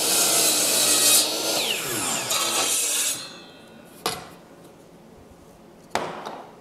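DeWalt miter saw cutting through a pine board, then the blade winding down with a falling whine that dies out about three seconds in. Two sharp knocks follow, about four and six seconds in.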